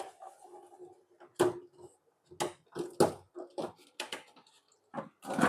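Thin plastic reflector sheet being lifted out of an LED TV's backlight frame, making a string of irregular sharp crackles, clicks and knocks.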